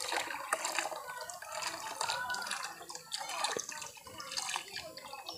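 Water splashing, trickling and dripping as a black plastic tub full of water and small goldfish is tipped and emptied into a netted tank, with gurgling bubbles.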